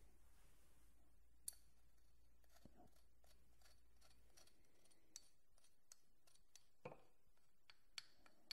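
Faint, sparse scraping and light clicks of a thin tool against the inside of a ceramic mortar, scraping crushed tablet powder into a small glass bottle.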